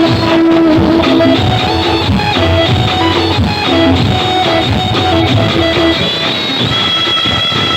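Instrumental music led by plucked and strummed guitar, with a melody line over a low accompaniment; a higher held melody line comes in near the end.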